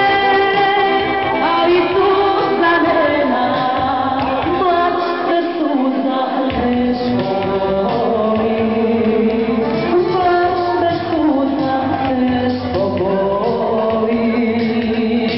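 A woman singing into a microphone, with sliding, bending notes in the melody, over an electronic arranger keyboard backing played live.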